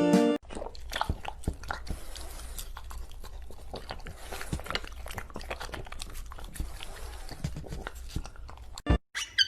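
An animal chewing crunchy food, with many irregular crunches and clicks.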